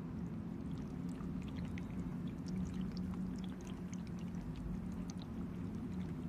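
Steady low hum with faint, scattered high ticks.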